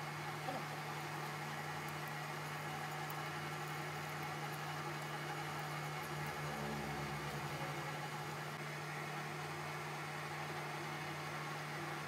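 Manual lathe running steadily: its motor and drive give a constant hum with a mechanical whirr, as a cutting tool turns down a small metal rod into a firing pin.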